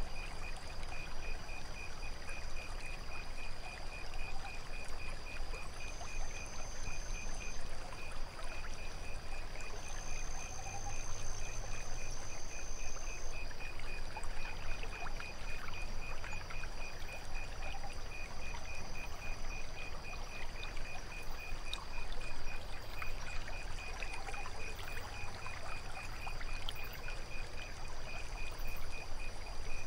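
Night insect and water ambience: a cricket chirping in a fast, even pulse over steady high insect trills, one of which comes and goes twice, with water trickling underneath.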